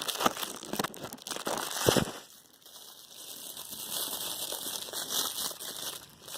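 Crinkling, rustling handling noise with many small clicks, loudest about two seconds in, dipping briefly and then going on more steadily.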